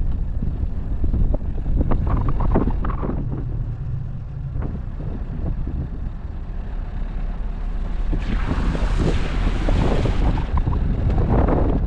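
Vehicle driving off-road: a steady low rumble, with a short rattle of noise about two seconds in and a louder hissing rush from about eight seconds in until just before the end.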